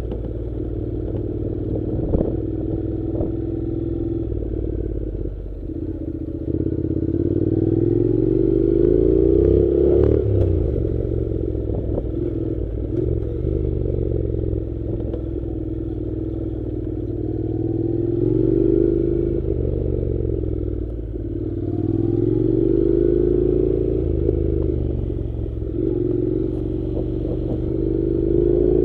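Honda NC700's 670 cc parallel-twin engine pulling on a dirt track, its note rising and falling several times as the throttle opens and closes. A few short knocks and clatters mixed in, about two and ten seconds in.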